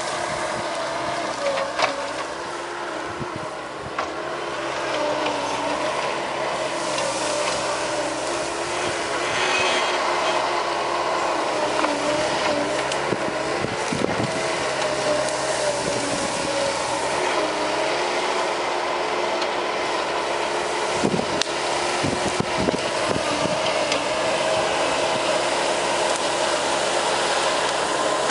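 Bobcat S185 skid steer's diesel engine running under working load, its pitch sagging and recovering several times as the machine works, with scattered knocks and clatter from the Brushshark shear and the brush.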